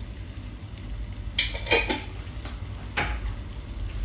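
Kitchen utensils clinking and clattering: a short cluster of clinks with a little ringing about a second and a half in, and one more clink near three seconds, over a low steady hum.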